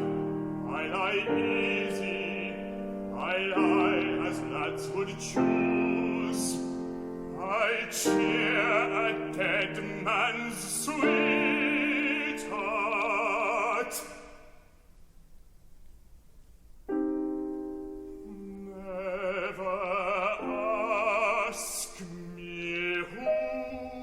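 Baritone singing in classical art-song style with piano accompaniment, with wide vibrato on long held notes. The voice drops out for about two seconds a little past the middle, leaving a quieter stretch, then comes back in.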